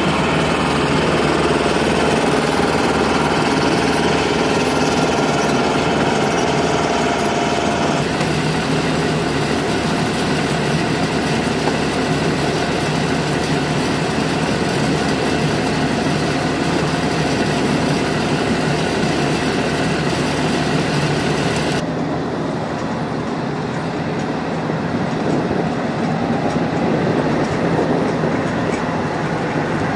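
Loud, steady engine noise of jet aircraft and ground equipment on a flight line, with some steady tones running through it. The sound shifts abruptly about 8 seconds in and again about 22 seconds in, where it becomes duller.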